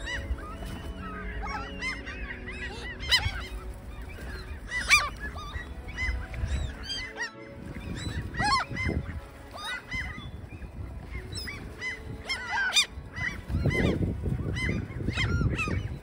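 A flock of gulls calling: many short, arched cries overlapping one another, with a low rumble near the end.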